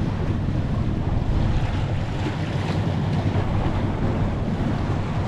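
Waves washing and breaking against the jetty rocks, with wind buffeting the microphone.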